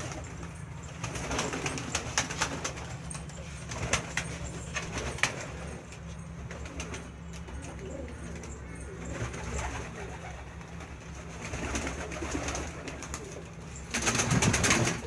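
Magpie pigeons cooing, over a steady low hum with scattered clicks, and a louder burst of noise about a second before the end.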